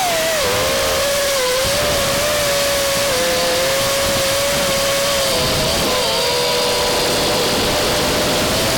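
6S-powered multirotor drone's electric motors whining in flight, several close tones that waver in pitch with throttle changes and dip briefly about half a second in and again around six seconds in.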